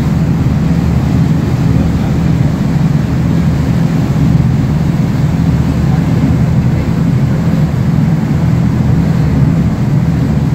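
A dhow's engine running steadily: a loud, even, low hum.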